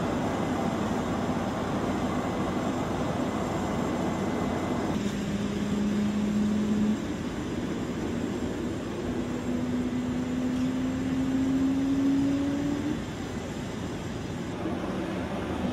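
Steady noise of jet aircraft engines running on a carrier flight deck. About five seconds in the noise changes and a low hum sets in, followed by a tone that slowly rises in pitch.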